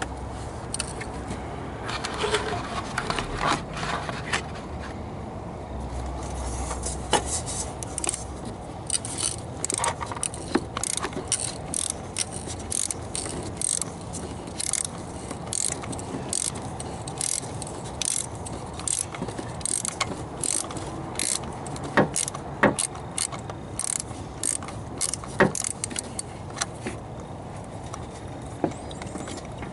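Ratchet wrench with a 5/8-inch spark plug socket on an extension, clicking in short, irregular strokes as a rusty old spark plug is worked loose from the M54 inline-six. The plug's threads squeak as they turn.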